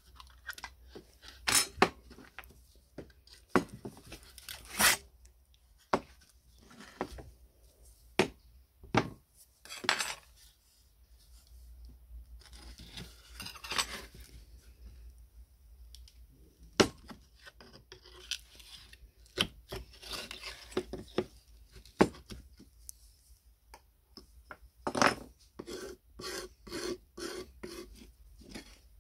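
Screwdriver and knife blade scraping and prying old punched-out chips out of the slot in a hole punch's wooden base: irregular scrapes and sharp knocks of steel on wood, with a quick run of short scraping strokes near the end.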